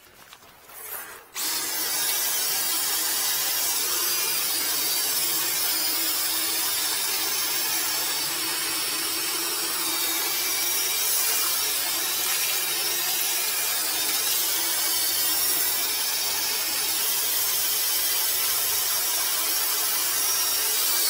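Electric drum-type drain-cleaning machine starting about a second and a half in and then running steadily, spinning its spring cable inside a blocked horizontal apartment drain main to clear the clog.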